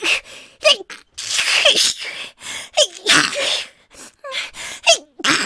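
A young woman sneezing over and over in quick succession, each sneeze a short voiced 'ha' breath followed by a breathy burst.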